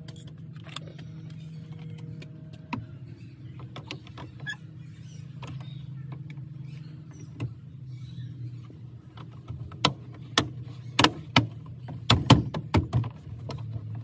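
Plastic interior door trim panel being fitted back onto a Ford F250 rear door, with scattered light clicks and then, in the last few seconds, a quick run of sharp knocks and snaps as it is pushed into place. A steady low hum runs underneath.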